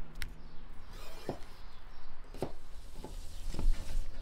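Food-preparation handling sounds: a knife working raw meat on a wooden board and a spoon stirring meat and potatoes in a glass bowl, heard as a handful of separate knocks and scrapes about a second apart.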